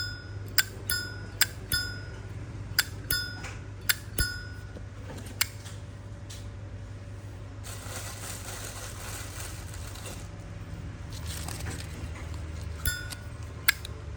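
Zippo lighter lid flicked open and snapped shut again and again, each click followed by a bright ringing ping. The lid sound has been tuned to ring. A stretch of soft hiss comes in the middle, and the clicks return near the end.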